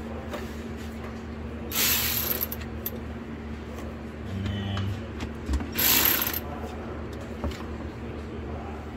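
Handling noise from working the wiring harness at the fuse block: two short, loud rushes of rustling, about two seconds in and again near six seconds, with a brief low hum between them.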